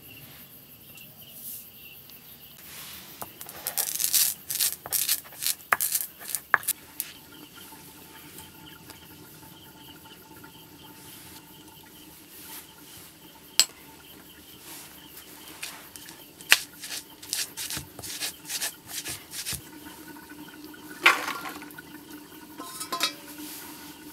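A round hand stone worked against a flat stone grinding slab (Nepali lohoro and silauto) to grind dry spices. It gives runs of gritty scrapes and stone-on-stone clacks about four seconds in and again in the second half, with a single sharp clack about halfway through.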